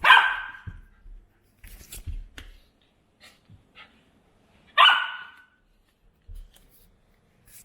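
Golden retriever puppy barking twice, two short, sharp barks about five seconds apart, with a few light knocks and scuffles between them. The puppy is protesting at being stopped from its mischief.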